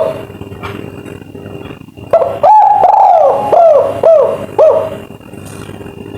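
Spotted dove (tekukur) cooing its 'kuk 3' song: one phrase about two seconds in, a long held coo followed by a quick run of short falling coos, over a faint steady hum.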